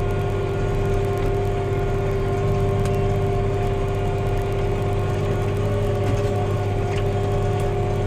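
Case IH Magnum tractor engine running steadily under load, heard from inside the cab, a constant low drone with a steady whine above it. A couple of faint ticks come through, one about three seconds in and one near seven seconds.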